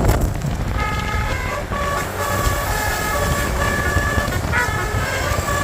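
Bus's multi-tone basuri telolet horn playing a fast tune of short, changing notes, over a low rumble.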